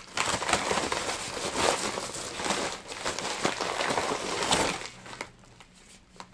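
Plastic bubble mailer crinkling and rustling as it is handled, dense with small crackles, stopping about five seconds in.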